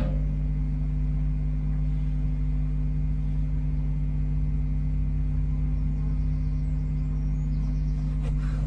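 Steady low hum on the nestbox camera's sound feed, unchanging throughout, with a few faint scrapes and knocks near the end.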